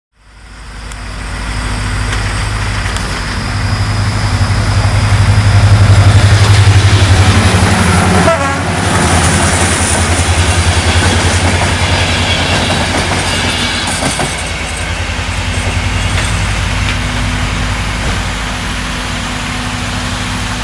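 GM class 65 diesel-electric locomotive running close by with a loud, steady deep drone, loudest a few seconds in. A short gliding tone sounds about eight seconds in.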